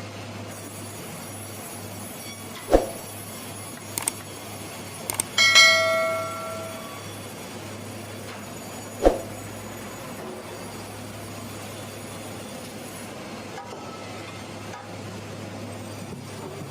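Steady machine hum with two sharp, loud knocks about six seconds apart. Between them come a few light clicks and a ringing metallic clang that dies away over about a second.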